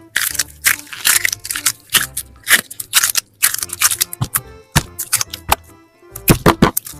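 Rapid crisp clicks and snips from slime-making with balloons, several a second, over soft background music.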